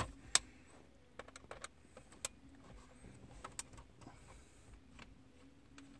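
Irregular light clicks and taps of hands handling a plastic heater control panel assembly and its small screws.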